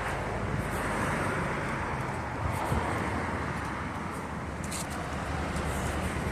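Street traffic: a car's engine and tyres passing by close, swelling at the start and slowly easing off.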